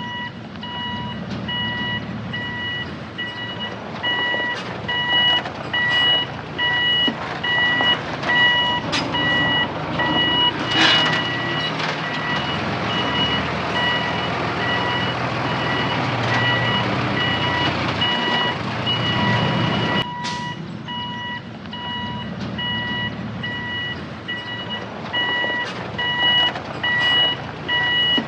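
Reversing alarm on a construction machine beeping in a steady, evenly spaced series over a diesel engine running, with occasional clanks and knocks.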